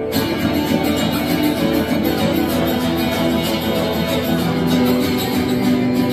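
Acoustic guitar strummed in a steady rhythm, ringing chords with no voice over them.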